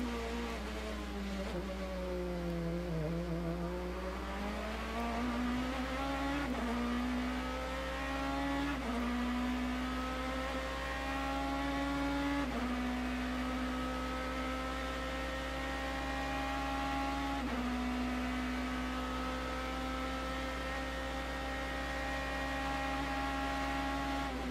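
BMW M3 GT race car's V8 engine heard onboard at racing speed. It slows for a corner over the first three seconds, the pitch falling, then accelerates hard, shifting up four times with each gear held longer than the last. In the last gear the pitch holds nearly steady.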